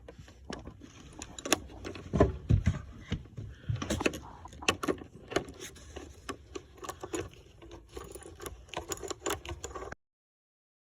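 Ratchet wrench with an extension and 12 mm socket working seat-mounting nuts: irregular metallic clicks and clinks. The sound cuts off abruptly near the end.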